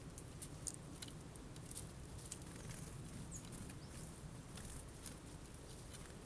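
Tits at a feeder pecking at sunflower seeds: irregular light ticks and taps, with one short high call about three and a half seconds in.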